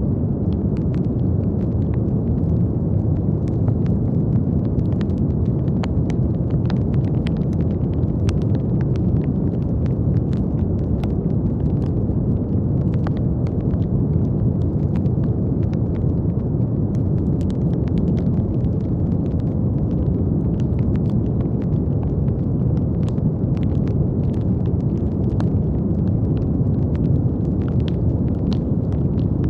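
Brown noise: a steady, deep rushing hiss weighted toward the low end, with faint scattered clicks like light crackling throughout.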